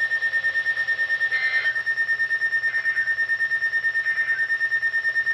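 FR-370 emergency weather radio sounding its alert: rapid, even beeping at one high pitch, set off by a tornado warning.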